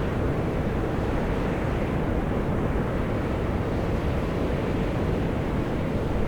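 Volcanic fumarole vents steadily jetting steam and gas with a continuous deep rushing hiss, the gas pressure driving it through the vents.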